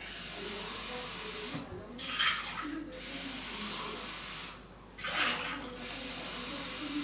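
Kitchen tap running in a steady hiss of water that stops twice for a moment and starts again, with a brief louder splash just after each restart.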